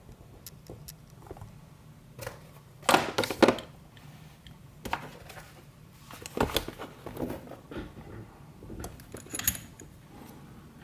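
Small metal parts of an Abloy DiskLock clicking and clattering as the lock is handled and taken apart with tools. The loudest cluster of sharp clicks comes about three seconds in, with more clatter around six and a half and nine and a half seconds.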